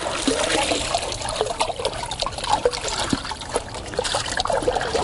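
Water and live bream being poured from a plastic bucket back into a river: a steady pouring and splashing as the fish are released.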